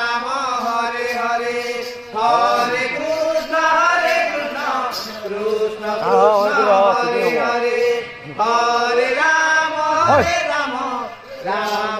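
Male voice singing a Sambalpuri kirtan chant in long, sliding phrases, pausing briefly about two, eight and eleven seconds in, without drumming.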